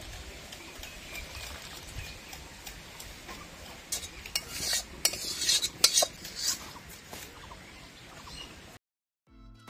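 A metal spatula scraping and clinking against a steel cooking pot as curry is stirred and scooped, in a cluster of strokes a few seconds in. Near the end the sound cuts out and background music begins.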